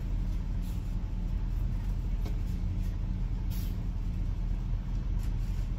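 Car engine idling steadily, a low even hum heard from inside the cabin.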